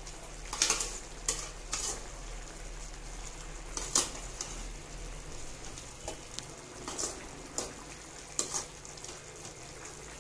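A metal slotted spoon stirring chicken in a watery gravy in a metal kadai, clinking and scraping against the pan about nine times at irregular moments, over a steady hiss of the liquid simmering.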